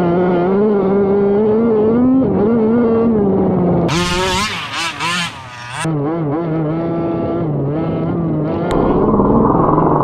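Small two-stroke petrol engine of a 1/5-scale 30 Degrees North DDT RC car running, its pitch rising and falling with the throttle. It revs harder and sharper for a couple of seconds in the middle.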